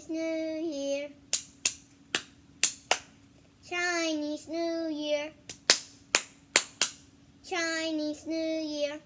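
A child singing a short chanted phrase three times, each followed by a run of about five or six hand claps.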